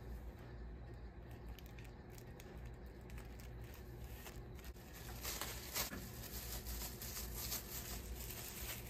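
Faint rustling, crinkling and small clicks of close handling over a low steady hum, a little busier from about halfway through: hands at work during hair-toner application.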